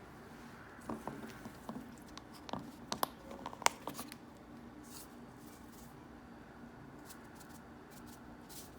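Faint kitchen handling sounds: a few light clicks, taps and scrapes of utensils and cookware, clustered in the first half, then quiet room tone.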